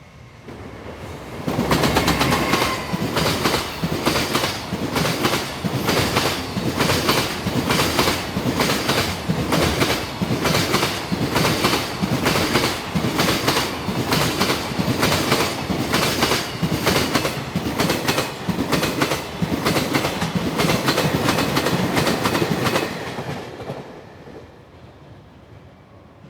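Down freight train, an EF210 electric locomotive with three Koki 200 container wagons, passing over a rail joint: its wheelsets clack over the joint in a fast, regular rhythm. The clacking builds up in the first couple of seconds, runs on loudly, and fades away about 23 s in.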